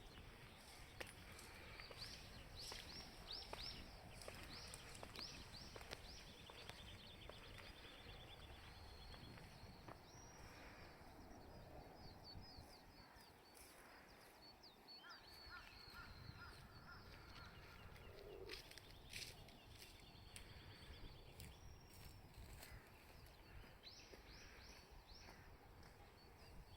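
Faint birdsong: several birds chirping and trilling in short high phrases over a low, steady background rumble.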